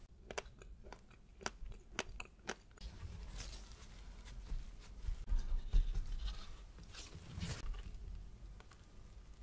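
A quick run of light clicks and taps, then paper towel rustling and crinkling under gloved hands pressed down on it to blot the raspberries underneath dry, loudest about midway and again near the end.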